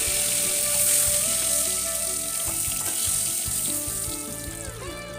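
Hot mustard oil sizzling in a wok after frying, with the hiss dying down near the end. Background music with held notes plays underneath.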